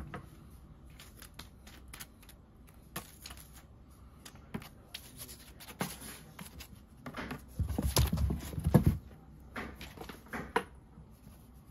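A kitten scrabbling and pawing at a cardboard box while batting at a crinkly cat teaser toy: scattered rustles, scratches and taps, with a louder burst of scuffling about two-thirds of the way in.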